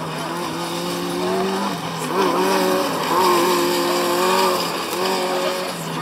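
Formula Student race car's engine running under throttle through tight cone turns, its pitch holding and then dipping briefly about two seconds in and again near five seconds as the throttle comes off and goes back on.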